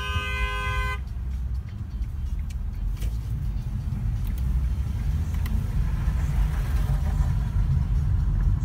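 Steady low road and engine rumble heard from inside a moving car's cabin. A car horn sounds once for about a second at the start.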